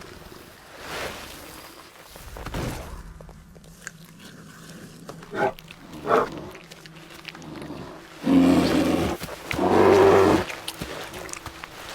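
Animals snarling and growling as they squabble over food: short calls in the middle, then two loud, longer snarls near the end.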